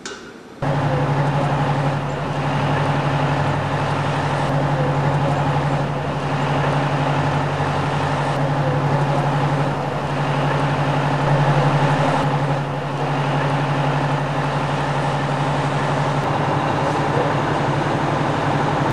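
Steady low engine hum, as of a vehicle idling, starting abruptly about half a second in and holding level throughout.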